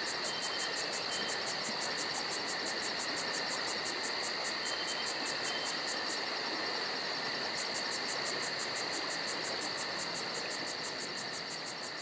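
Steady chorus of insects: a fast, even pulsing chirp at about five a second over steady high-pitched trilling. The pulsing briefly gives way to a steady buzz a little past the middle.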